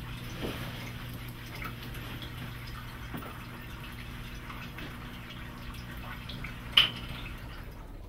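Quiet room ambience: a steady low hum with faint dripping water and a few soft ticks, and one sharper click about seven seconds in.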